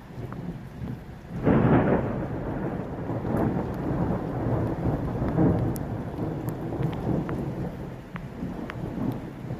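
A thunderclap breaks about a second and a half in and rolls on as a long rumble that slowly dies away, over steady rain with scattered drops ticking.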